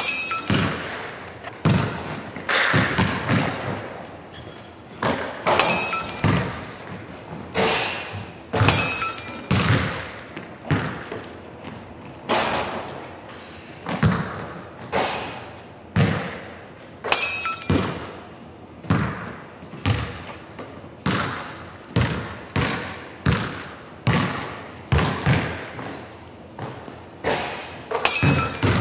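Basketball bouncing on a hardwood gym floor and striking the rim and backboard, a string of irregular thuds about every second, echoing in a large gym.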